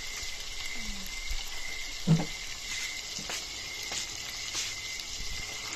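Ground meat and sliced hotdogs frying in oil in a wok: a steady sizzle with scattered small pops and crackles. One brief, louder low sound comes about two seconds in.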